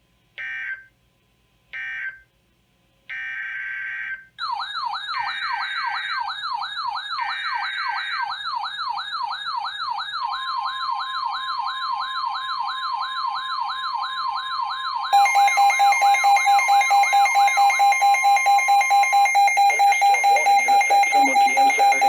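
Emergency Alert System data bursts: three short screeching bursts, then a longer burst that repeats twice. From about four seconds a rapidly warbling siren sounds over them, joined at about ten seconds by a steady alert tone. At about fifteen seconds a louder, rapidly pulsing two-tone EAS attention alarm takes over.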